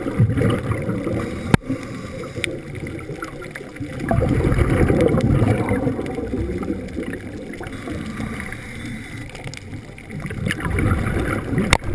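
Scuba regulator exhaust bubbles rushing past an underwater camera housing, coming in surges a few seconds long with the diver's breaths out and quieter between, with a few sharp clicks, the clearest about a second and a half in.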